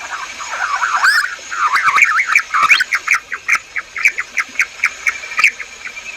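Quail calling: overlapping whistled, gliding notes, then a quick run of short repeated notes, about five a second.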